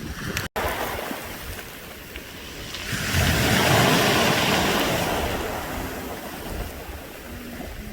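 A wave washing up a beach of round pebbles: the surf swells about three seconds in and fades, with the clatter of pebbles rolled by the water, the 'jade bead' sound of a pebble beach. The sound cuts out for an instant near the start.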